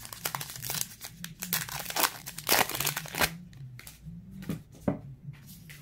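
Foil wrapper of a Topps Heritage Minor League baseball card pack crinkling and tearing as it is ripped open, in quick crackly strokes for about three seconds. The crinkling then dies down to light handling with a couple of soft ticks.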